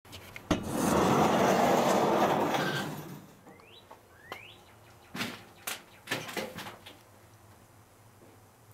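Wooden shed door opened by its handle: a click, then a loud rush of noise lasting about two seconds as the door moves, followed by a few sharp knocks. A bird chirps twice with short rising calls in between.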